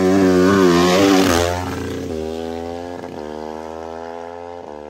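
A 450cc dirt bike racing past at full throttle, loud for about the first second and a half, its note dropping as it goes by, then pulling away, climbing in revs and shifting up three times as the sound fades.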